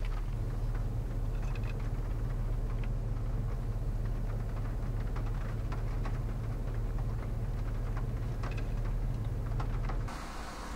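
Steady low road and engine rumble heard inside a slowly moving car's cabin, with scattered light ticks. About ten seconds in the rumble cuts off abruptly, leaving a lighter hiss.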